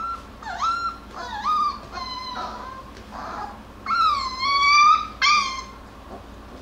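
Jackabee (Beagle–Jack Russell cross) puppies whimpering: about half a dozen high, wavering cries, the longest and loudest about four seconds in and lasting about a second.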